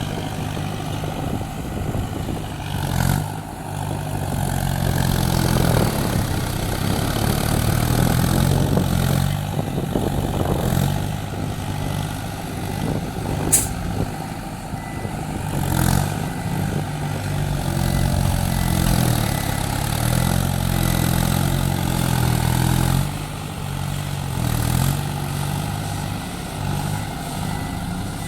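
Heavy diesel earthmoving machinery running, its engine note swelling and easing every few seconds as it works under changing load, with one sharp click about halfway through.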